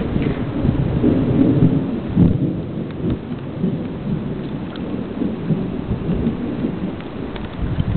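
Thunder rumbling continuously, rolling unevenly, with rain falling.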